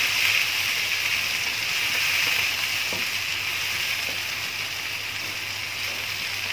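Onions, tomatoes and ginger-garlic paste sizzling steadily in hot oil in a wok while being stirred with a spatula, a little louder in the first couple of seconds.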